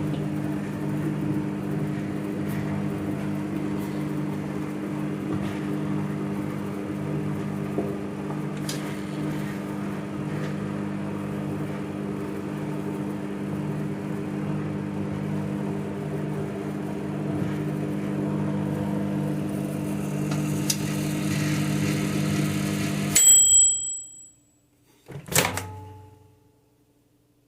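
Microwave oven running with a steady hum. The hum cuts off about 23 seconds in, followed at once by a single short high beep that marks the end of the cycle. A couple of seconds later a sharp clunk comes, typical of the door latch being released.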